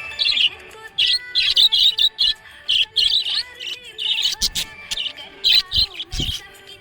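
Budgerigar chirping and warbling in quick short bursts, one after another, over background music. Two low thuds sound near the end.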